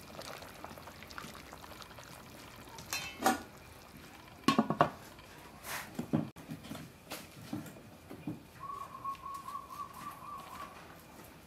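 A large aluminium lid clanking onto a pot of boiling stew, with two sharp metal strikes about four and a half seconds in and lighter knocks around them, over the pot's bubbling.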